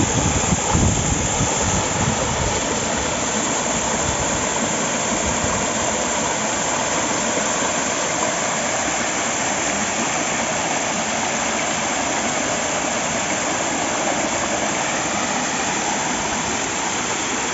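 Waterfall pouring close by: a loud, steady, even rush of falling water, with some low buffeting on the microphone in the first second or so.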